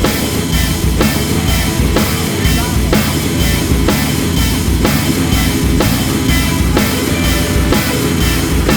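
Rock music with drums and guitar and a steady beat.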